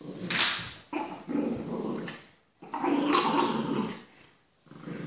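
Dogs growling in play during a tug-of-war over a rope toy, in about four rough bouts with short pauses between them.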